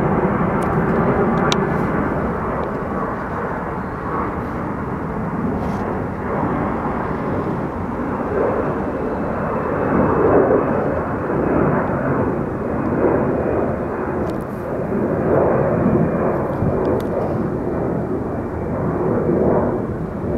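Airbus A340-300 four-engine jet airliner on the runway, its engines giving a continuous rumble that swells and ebbs every few seconds.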